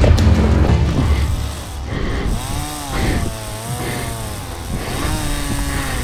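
Chainsaw revving, starting about two seconds in, its pitch rising and falling unevenly.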